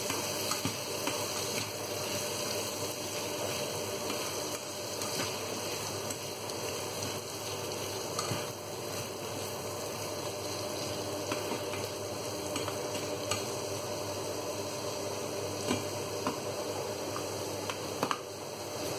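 Diced courgettes sizzling in a frying pan as they are stirred and tossed with a spatula, the spatula scraping and clicking against the pan. Near the end come a couple of louder knocks as the spatula is put down.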